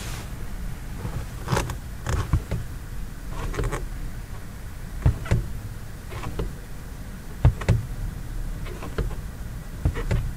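Accelerator pedal of a Mk7 VW Golf R pressed and released again and again, as it is pumped to calibrate a throttle pedal tuner. It gives a string of short knocks and clicks, about ten in all, over a steady low hum in the cabin.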